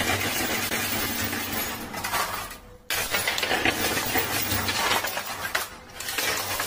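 Dense clattering and clinking of poker chips in a coin pusher machine. It cuts out abruptly just before three seconds in, then resumes.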